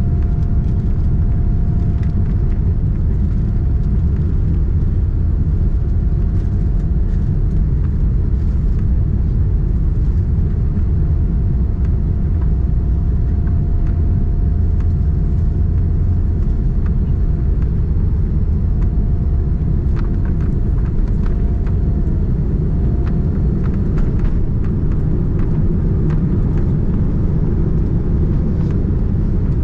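Steady, loud low rumble of engine and airflow noise heard inside the cabin of a Boeing 787-9 airliner, with a thin steady tone above it that drops out briefly several times.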